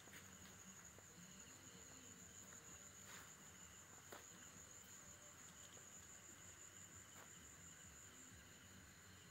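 Faint crickets trilling steadily and high-pitched at night, with a couple of light ticks about three and four seconds in.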